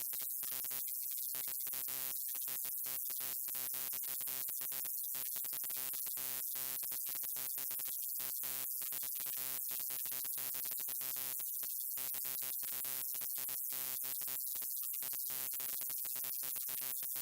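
Neon sign buzzing: a steady electrical hum with many overtones over a high hiss. It cuts out for an instant at irregular moments throughout.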